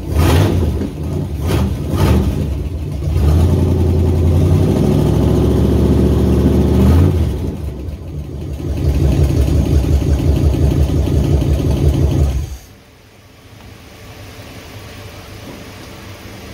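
Holden 253 V8 running on its first start after sitting twenty years, revved in spells at the carburettor. It is shut off abruptly about twelve and a half seconds in.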